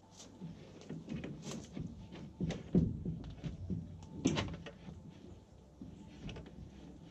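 Scattered knocks, thuds and scrapes of someone working at a pickup truck bed propped on wooden sawhorses. The loudest are two thuds about two and a half seconds in and another just after four seconds.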